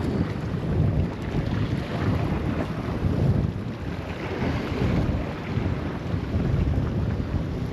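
Wind gusting across the microphone, rising and falling.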